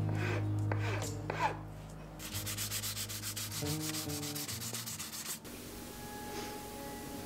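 Sandpaper rubbed rapidly back and forth over a hand-carved wooden axe handle, a quick run of scratchy strokes for about three seconds in the middle that then stops.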